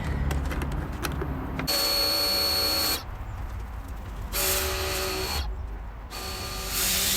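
Electric pressure washer run in three short bursts of about a second each, its motor whining under the hiss of the spray, with a lower steady hum and small clicks before the first burst.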